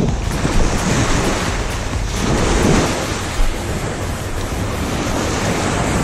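Small surf washing in and out over sand at the water's edge, with wind buffeting the microphone. A wave surges in about two seconds in.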